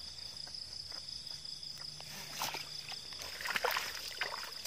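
Splashing in shallow muddy water: a short splash about two seconds in, then a louder run of splashes about a second later. Night insects chirr steadily underneath.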